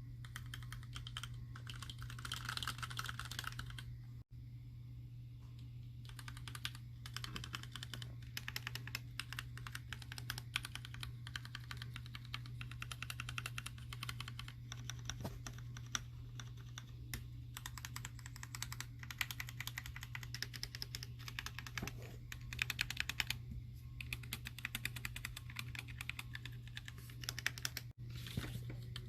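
Fast typing on a mechanical keyboard with Gateron Ink linear switches, PBT keycaps and an acrylic Alice-layout case and plate: a dense run of keystroke clacks that pauses briefly a few times, over a steady low hum.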